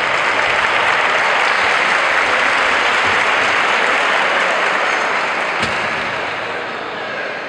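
Audience applauding in a large hall, steady for about five seconds and then dying away.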